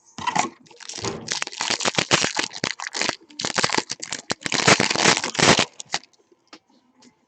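Foil wrapper of a Valor football card pack crinkling and crackling as it is torn open and handled, a dense run of sharp crackles that stops about two seconds before the end.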